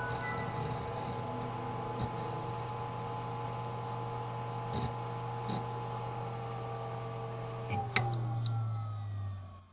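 Vintage computer running with a steady hum and several held whining tones, with a few faint ticks. About eight seconds in a sharp click switches it off, and the tones fall in pitch as the fans and drives spin down and the hum dies away.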